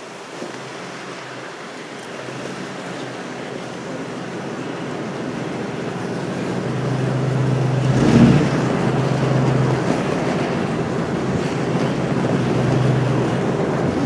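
4x4 truck driving slowly over a snowy logging road: a steady rush of engine, tyre and wind noise on the microphone that grows gradually louder. A low engine hum comes in about two-thirds through, and a single bump knocks about eight seconds in.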